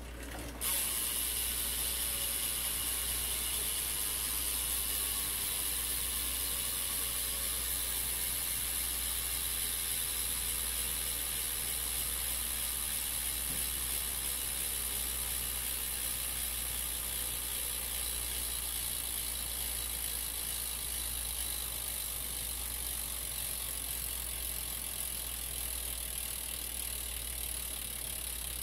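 BMX bike's Redline rear hub freewheeling: the pawls clicking in a fast, steady buzz as the wheel coasts, starting suddenly about a second in and slowly winding down in pitch as the wheel loses speed.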